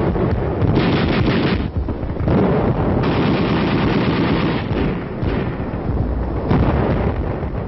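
Battle noise simulator playing a continuous din of recorded gunfire and artillery through banks of horn loudspeakers, swelling and easing in waves.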